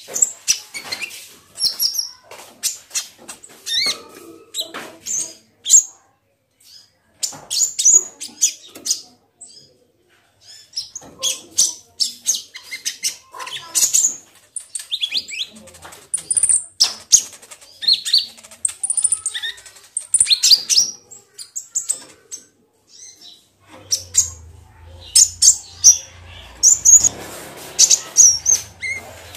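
Caged plain-throated sunbird (kolibri ninja) singing a fast, irregular run of sharp, high chirps and twitters, in full song, with wing flutters as it hops about the perch. A low hum comes in near the end.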